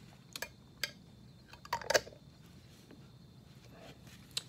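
Handling of a glass salsa jar as its screw-on lid is put back on: a few light clicks, a louder clack about two seconds in, and one more sharp click near the end.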